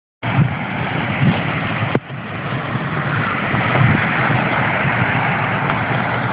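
Dam spillway waterfall: a steady rush of falling water, heavy in the low end, with a brief click about two seconds in.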